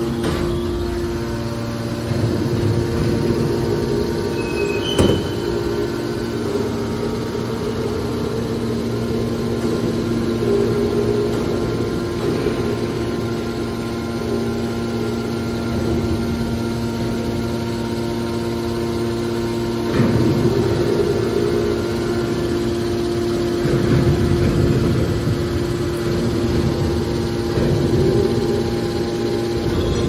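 Hydraulic power unit of a scrap metal baler, electric motors driving the pumps, running with a steady hum. A few louder swells of noise rise over it, and there is a short click about five seconds in.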